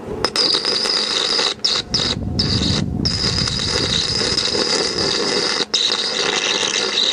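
Stick (MMA) electric arc welding with an inverter welder on a steel wheelbarrow frame. The arc gives a steady crackling sizzle and breaks off for a split second a few times along the way.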